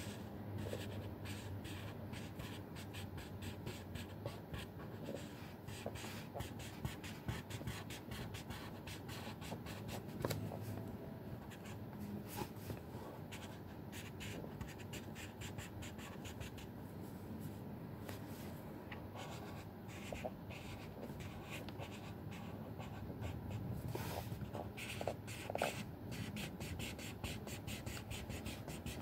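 Felt-tip marker scratching on paper in quick back-and-forth strokes, colouring in a drawing.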